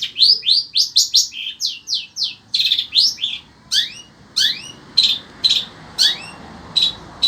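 Long-tailed shrike (cendet) singing loudly: a rapid run of sharp, sweeping high notes, about five a second at first, slowing to about two a second, with some rising whistled notes mixed in.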